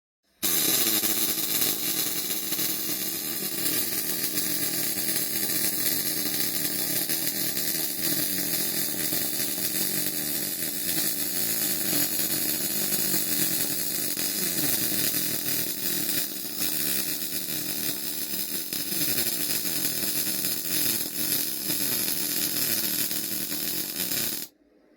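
MIG welding arc from an Andeli welder feeding 0.8 mm wire at about 15.3 volts and 66 amps, running continuously through one long bead and cutting off abruptly near the end.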